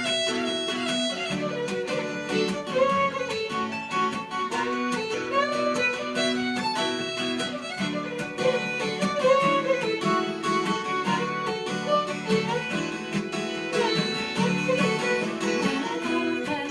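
Instrumental break in a traditional folk ballad: a fiddle plays the sliding melody over acoustic guitar accompaniment.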